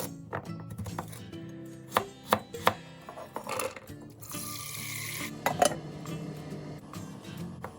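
Kitchen food-preparation sounds: three quick knocks of a utensil on a board or bowl, about a third of a second apart near the middle, a brief hiss, then two more sharp clatters, over soft background music.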